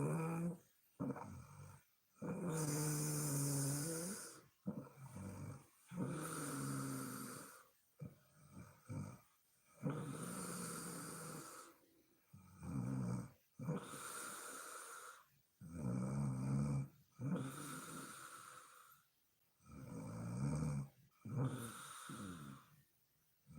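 A sleeping woman snoring: a string of breaths every couple of seconds, some with a low buzzing rattle and others mostly breathy, with brief silent gaps between them.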